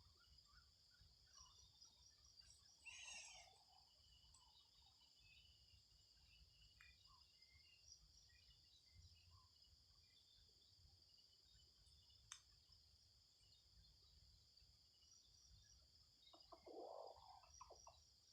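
Faint forest ambience: a steady, high insect chorus with scattered bird chirps. There is a louder bird call about three seconds in and another, lower call near the end.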